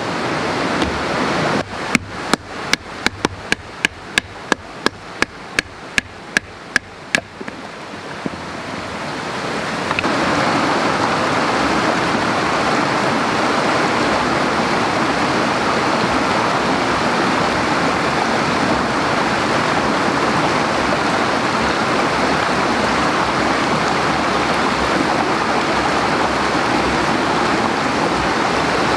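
A quick run of about seventeen sharp knocks, roughly three a second, then a steady rushing of running water that lasts the rest of the time.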